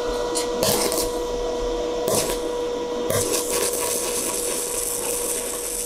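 Stick-welding arc from a 1.6 mm E6013 electrode on thin steel tube at about 42 A. It catches with a few separate crackles as the arc is struck, then settles into a steady crackling hiss from about three seconds in, over a steady high tone.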